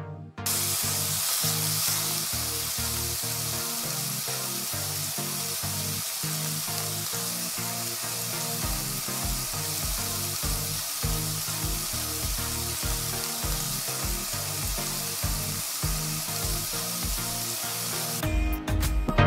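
Chicken pieces with potato wedges and onion sizzling in a frying pan: a steady frying hiss that starts about half a second in and stops shortly before the end. Quieter background music plays underneath.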